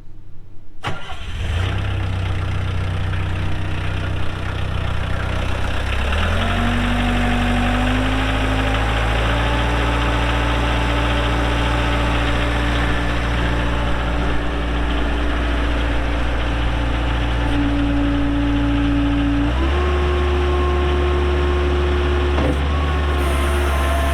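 Kubota diesel engine of a 1993 Bobcat 743B skid steer starting about a second in and running steadily. Its speed steps up around six seconds in and again near twenty seconds.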